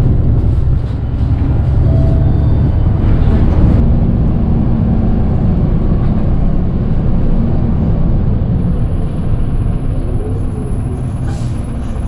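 Steady low rumble of a city bus heard from inside while it drives along, engine and road noise together.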